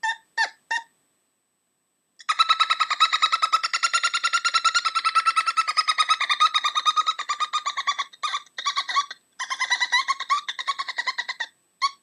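A woman's voice imitating a dolphin or monkey call: a high-pitched hum pushed out in rapid staccato pulses, about ten a second. It starts with a few short pulses, goes quiet briefly, then runs as a long even pulse train from about two seconds in, breaks near eight seconds and resumes, all on one breath.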